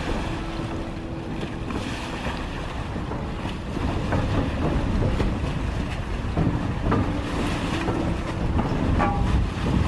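Wind buffeting the microphone over the running engine of a small passenger ferry berthing, its propeller churning the water alongside the landing. A few light knocks in the second half.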